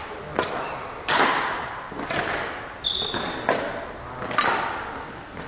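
Badminton rackets striking a shuttlecock in a rally, about five sharp hits roughly a second apart, echoing in a large sports hall. A brief high squeak comes about three seconds in.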